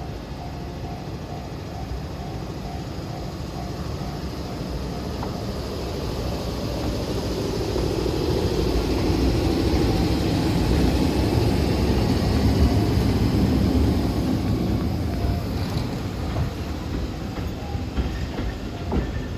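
Train passing over a level crossing: a JNR Class EF65 electric locomotive propelling three Izukyu 2100-series passenger cars. Its running noise swells to a peak about ten to fourteen seconds in, with wheel clacks over rail joints near the end. A level crossing bell dings in a steady rhythm at first.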